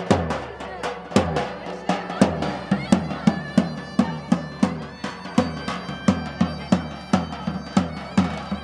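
Davul, the large double-headed folk drum, beaten in a steady dance rhythm of about three strikes a second. A high-pitched reed melody from a zurna comes in about halfway through.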